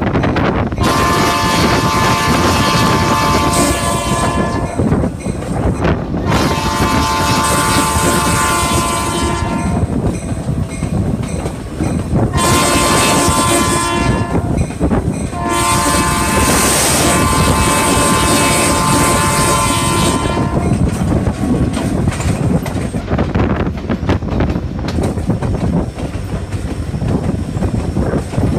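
Locomotive air horn sounding the grade-crossing signal: two long blasts, a short one, then a final long one. Under the horn is the steady running rumble and clatter of the moving train.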